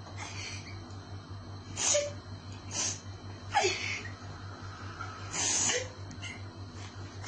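A boy sobbing: about five sharp, wet sniffs and catching breaths, the longest one near the end. A steady low electrical hum runs underneath.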